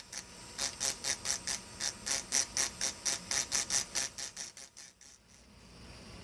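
Engraving drill's burr grinding an optical crystal glass block in short, repeated touches, about four or five a second, stopping about five seconds in.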